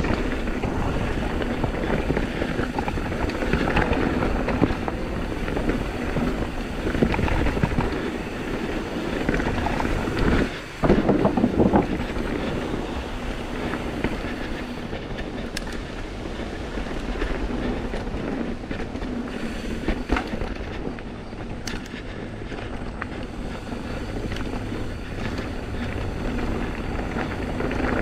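Intense M16 downhill mountain bike running down a dirt trail, heard from the GoPro on the rider or bike: a continuous rumbling rattle of tyres, chain and suspension over roots and rocks, with scattered sharp clicks. About ten and a half seconds in the noise drops out for a moment and then comes back as a louder clatter.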